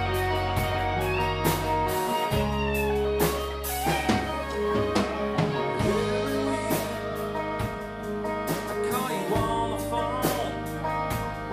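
A live rock band playing a song: electric guitars over held bass notes and a Ludwig drum kit keeping a steady beat.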